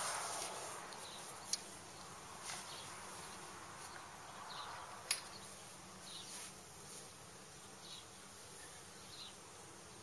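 Faint outdoor background of insects buzzing and chirping, with a few short clicks and knocks from awning poles being handled. The sharpest click comes about five seconds in.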